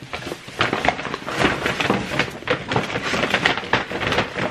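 Brown paper shopping bag rustling and crinkling as a hand rummages inside it, a dense run of sharp crackles.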